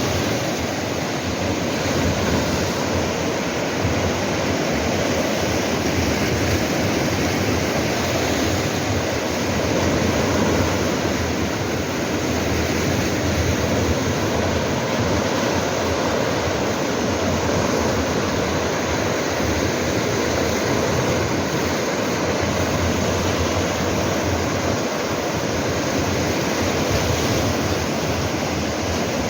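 Sea waves washing over coastal shore rocks: a steady rushing surf that swells and eases only slightly.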